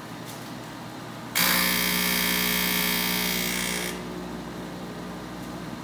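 A Master MH-80-OFR diesel-fuelled radiant heater starting up. About a second and a half in, its motor comes on suddenly with a loud hum and hiss. This drops off after about two and a half seconds to a quieter steady running sound as the burner lights.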